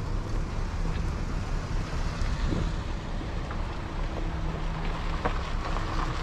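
Wind buffeting an action camera's microphone, a steady low rumble.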